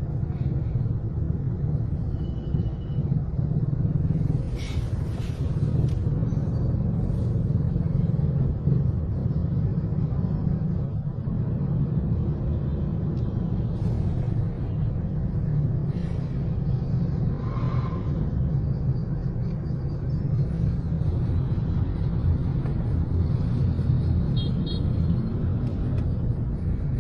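Steady low rumble of city road traffic, with vehicle engines running close by.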